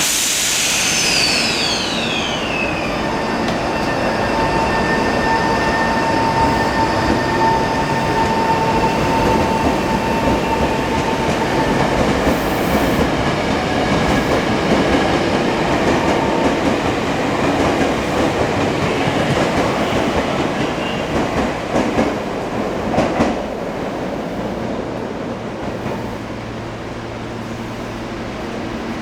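Electric commuter train moving through a station. Its traction-control whine falls in pitch over the first few seconds, then holds as a steady whine over continuous rumble and wheel clatter.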